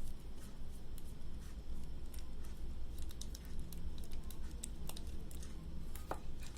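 Scattered small clicks and taps of a plastic power adapter being handled and worked open, over a steady low hum. A short squeak falls in pitch about six seconds in.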